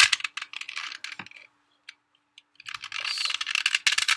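Plastic 2x2 puzzle cube being turned by hand: rapid clicking and clacking of the layers as they rotate, in two flurries with a short pause of a second or so between them.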